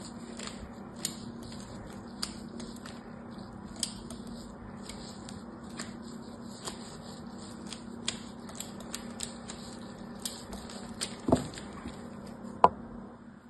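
A thin pointed tool scratching short lines into the surface of a hard bar of soap: crisp little scratches at irregular intervals, about one or two a second. Near the end come two louder knocks.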